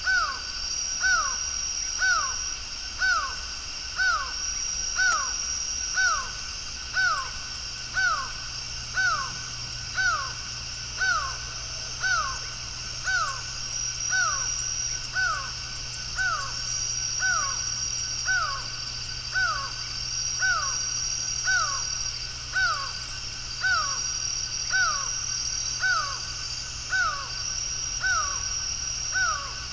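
Laughing falcon (acauã) calling: one short, down-slurred note repeated steadily about once a second. A high, steady buzz comes and goes behind it.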